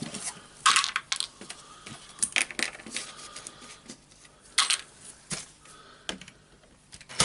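Scattered small clicks, taps and clinks of hard plastic and metal parts being handled and pried at while a rotary hammer drill's mode button and spring are worked loose.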